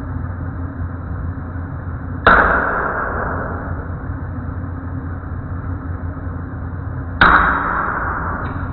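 Two sharp hammer blows on steel, about five seconds apart, each ringing off briefly, with a lighter tap near the end, over a steady low hum.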